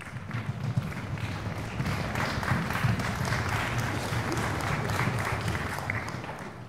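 Theatre audience applauding, a dense patter of many hands clapping that fades out near the end.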